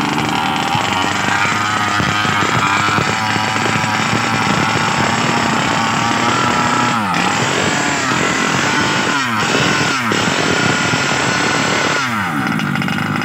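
Small 20 cc two-stroke petrol engine of an RC Baja buggy running at a fast idle. Its pitch dips and climbs back several times in the second half as the throttle is worked.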